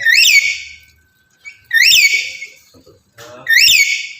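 Male black-capped lory giving loud, high whistled calls, three of them about two seconds apart, each rising sharply then dropping in pitch: a male in breeding condition calling to a female.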